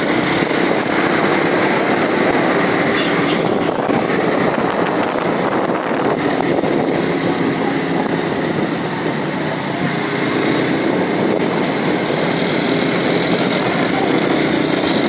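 Motorcycle engine running steadily while riding, under a loud, even rush of wind and road noise heard from on the moving bike.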